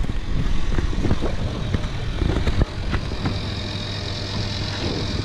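Diesel fuel bowser: a few knocks as the nozzle and hose are handled, then a steady high whine from about two and a half seconds in as the pump runs up, over a steady low hum.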